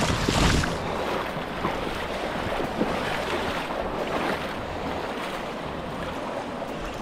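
Steady rushing of river current, with wind buffeting the microphone.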